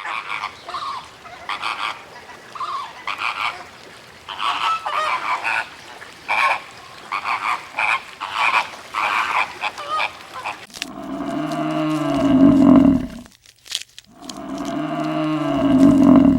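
Animal calls: for about ten seconds, short repeated calls come a few per second. Then come two long, low calls, each about two seconds long, that rise and then fall in pitch.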